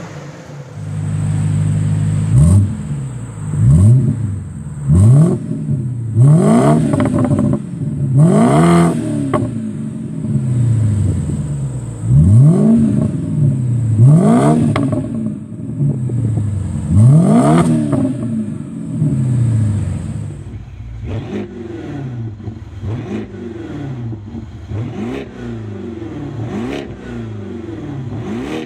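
BMW 550i V8 on a straight-piped exhaust, revved repeatedly at a standstill: about a dozen revs, each rising and falling over about a second. About two-thirds of the way through, it gives way to a 550i GT's V8 on a custom exhaust, blipped in quicker, shorter revs.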